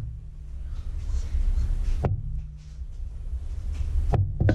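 Low throbbing rumble of handling noise on a body-worn camera, with a sharp knock about two seconds in and a few more near the end.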